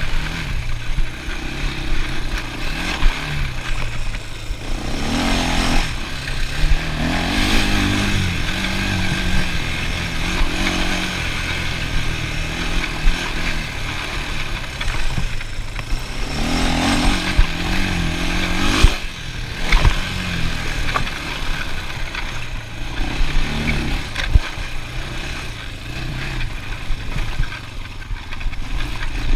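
ATV engine running under a rider, its revs rising and falling again and again as the throttle opens and closes, with occasional knocks and rattles from the machine going over rough ground.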